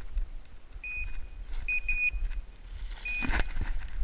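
Short, flat, high electronic beeps from a bird dog's beeper collar, one about a second in, a quick cluster around two seconds and another near three seconds, over low wind rumble; a brief rustle of movement through cover comes near the end.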